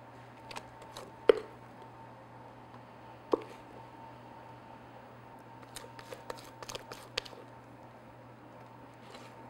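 Thick cake batter being scraped with a spatula out of a mixer bowl into a metal Bundt pan: two sharp knocks about one and three seconds in, then a run of small clicks and taps near the middle, over a faint steady hum.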